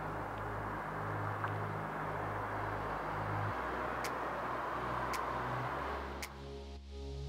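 Steady distant city traffic noise with background music underneath, a low bass line moving in held steps. The traffic noise fades out about six seconds in, leaving the music.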